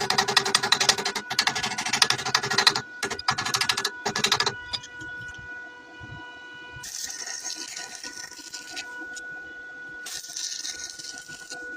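Welding arc crackling in rapid bursts for about four and a half seconds, then two shorter stretches of a quieter high hiss later on, with a faint steady whine underneath.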